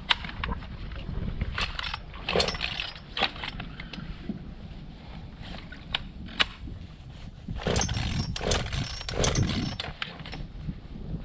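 Repeated pull-cord starting attempts on a two-stroke chainsaw: irregular rasping yanks a second or few apart, and the engine never catches. The owners suspect water in the engine.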